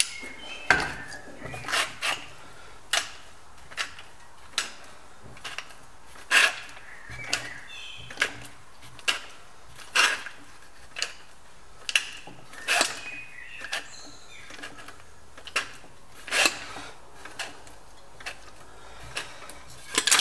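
Metal shrinker's jaws clamping down on the flange of a sheet-metal repair panel, about one sharp metallic clack a second, each with a short ring. Each clack is one bite of the shrinking jaws, compressing the edge to pull a curve into the panel.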